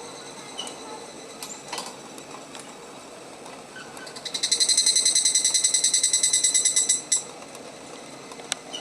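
Higurashi (evening cicada) calling: a rapid string of ringing high notes, about ten a second, that swells in about four seconds in and stops about three seconds later. Fainter higurashi calls and a few short clicks come before it.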